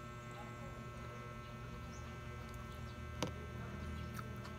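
Close-up eating sounds: a person chewing a mouthful of rice taken by hand, with a few small sharp mouth clicks, the clearest about three seconds in, over a steady low hum.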